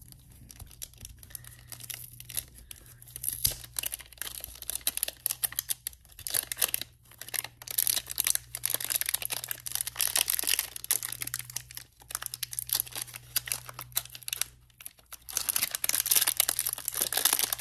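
Clear plastic wrapping around a 3x3 speedcube crinkling and tearing as it is unwrapped by hand, in irregular bursts of rustling with short pauses. A faint steady low hum runs underneath.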